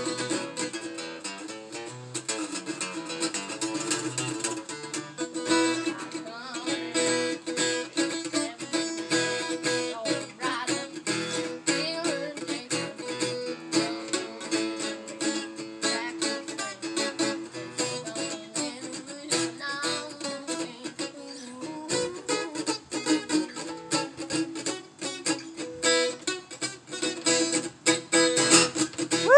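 Acoustic guitar played solo: a steady run of plucked notes and chords ringing on.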